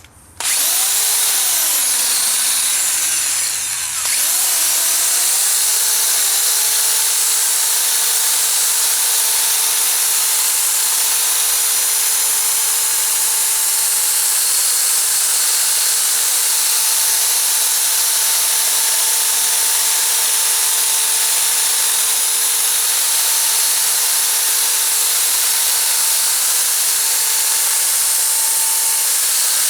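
Electric drill spinning a Mother's PowerBall polishing ball on a cloudy headlight lens. The drill's pitch sags and recovers a few times in the first seconds, then it runs steadily.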